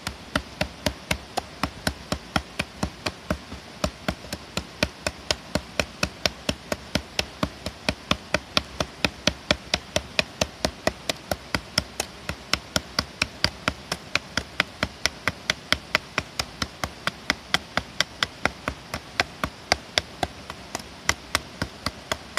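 A Tosa double-bevel nata (Japanese hatchet-machete) chopping into a green branch resting on a wooden block. Sharp, evenly paced blows of the blade into the wood, about three to four a second.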